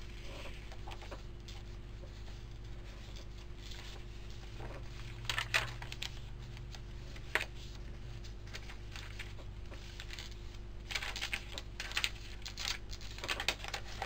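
Pages of a handmade paper journal being turned and handled, giving soft paper rustles and light clicks. There are a few about five to seven seconds in and a denser run near the end, over a steady low hum.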